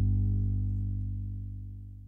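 Background music ending: a held chord rings on and fades out steadily.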